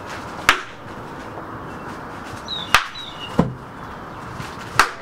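Bubble wrap popping: three sharp, single pops spread across a few seconds and a duller fourth one, as it is burst underfoot.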